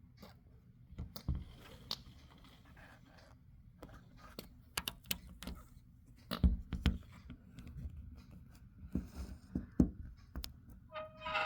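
Scattered clicks, knocks and scrapes close to the microphone, the loudest about six and a half and ten seconds in, with a short steady tone with overtones near the end.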